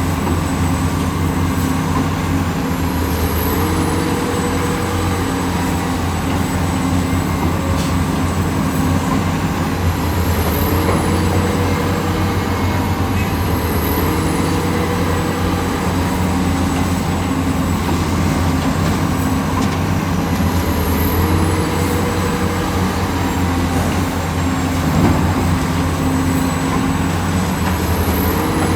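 Heavy diesel engine of an excavator running steadily under load, with a higher tone that rises and drops back every few seconds as the machine works.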